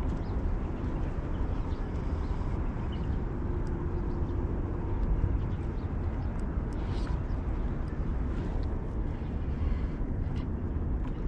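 Wind buffeting the camera microphone outdoors by open water: a steady, ragged low rumble with a few faint clicks.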